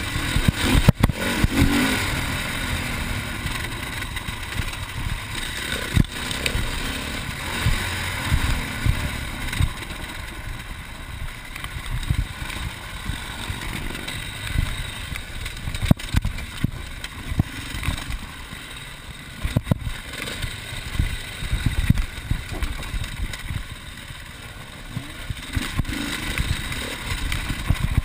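Enduro motorcycle engine running and revving up and down under the rider's throttle on a rough dirt trail, with knocks and rattles from the bike bouncing over bumps.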